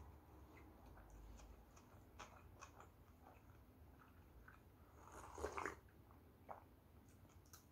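Faint chewing and small mouth clicks, then, about five seconds in, a short slurp as egg soup is sipped from a bowl held to the lips.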